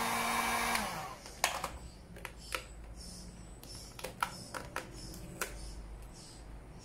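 Handheld heat gun blowing with a steady motor hum, switched off just under a second in as its hum winds down. After that, scattered crackles and sharp ticks of vinyl wrap film being stretched and pressed by hand.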